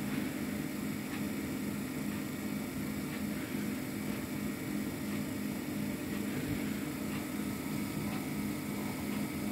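Steady low electrical hum over a faint hiss: room tone, with no speech.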